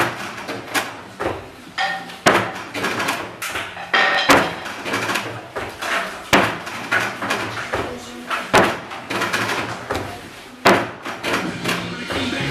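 Feet landing on a 50 cm wooden box during continuous box jumps: a sharp knock about every two seconds, with lighter thumps between as she drops back to the floor mat.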